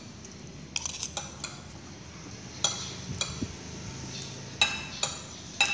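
A metal spoon clinking against a ceramic plate: several sharp clinks spread over a few seconds, each with a short ringing note.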